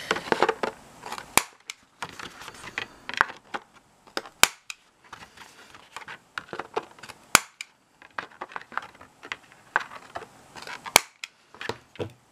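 Handheld corner rounder punch snapping through white card four times, one sharp click about every three seconds as each corner is rounded, with lighter clicks and paper handling in between.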